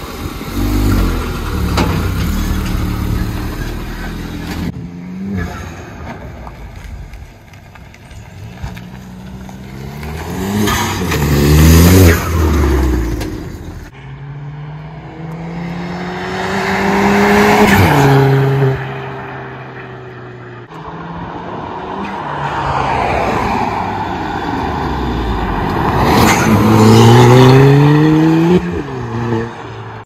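Ford Fiesta ST180's turbocharged 1.6-litre four-cylinder engine being driven hard, revs climbing several times and dropping back at gear changes, over road and wind noise. The car is running on a freshly replaced driveshaft, the inner CV joint knock gone from that side.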